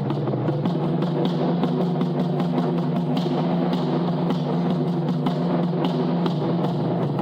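Japanese taiko drums played in a quick, continuous pattern, with sharp wooden clicks among the drum strokes, over steady low pitched tones.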